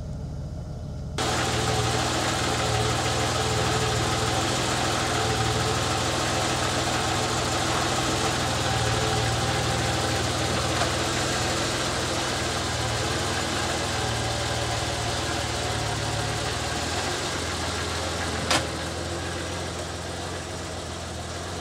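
BMW E34 5 Series engine idling steadily on freshly changed oil, quieter at first and louder from about a second in. A single sharp click about eighteen seconds in.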